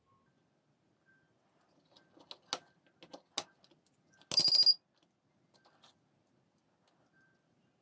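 Light clicks and taps as multimeter probes and a disposable vape's small parts are handled. About four seconds in comes a half-second run of rapid clicks with a high beep, from the digital multimeter's rotary dial being turned to a new range.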